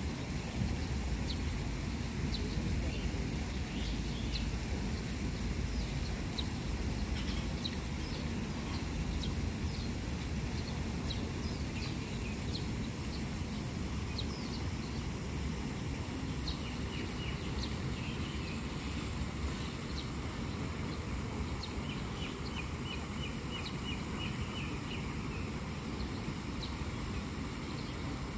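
Birds chirping and calling in short, scattered notes over a steady low rumble of outdoor background noise, with a quick trill of repeated notes about two-thirds of the way through.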